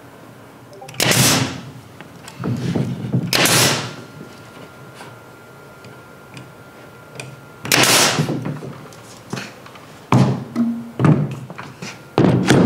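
A series of separate thunks and clattering knocks, about five in all with quiet between: wooden cleats and tools being set and worked against an OSB panel wall.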